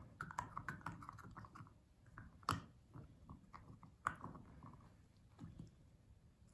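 Akita puppy gnawing and chewing on a hand-held stick of dried beef sinew: a run of small wet chewing clicks and crunches, with two sharp loud cracks about two and a half and four seconds in. The sinew is too tough for her to bite through.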